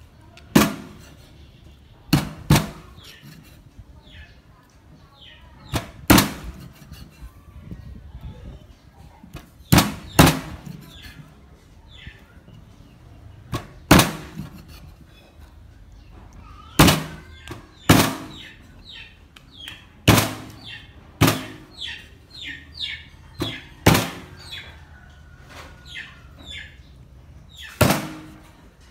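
Heavy cleaver chopping a snake into pieces on a thick round wooden chopping block: sharp thuds every few seconds, sometimes two in quick succession, with lighter knocks and taps between.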